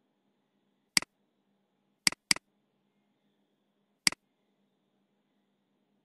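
Computer mouse button clicks: four sharp clicks, one about a second in, two in quick succession just after two seconds, and one about four seconds in.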